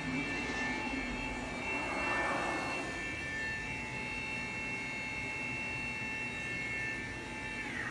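15 HP HSK router spindle of an Anderson Maxxis 3116 NC 5-axis CNC router, running free with a steady high whine. Near the end the whine falls in pitch as the spindle begins to spin down.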